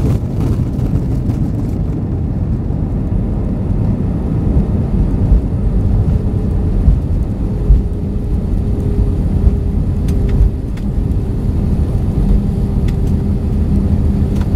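Steady low rumble of a jet airliner, with a few brief thumps, and a faint steady hum that comes in about four seconds in.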